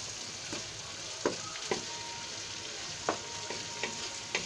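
Chicken pieces with onion, capsicum and tomato sizzling steadily in oil in a non-stick wok as a wooden spatula stirs them, with about five short scraping knocks of the spatula against the pan.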